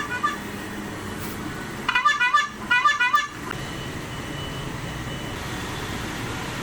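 KOSO electronic motorcycle horn playing a stored sound effect: two short warbling, chirping blasts of several tones, about a second apart, ending a little after three seconds in. The end of an earlier tone pattern is heard at the very start.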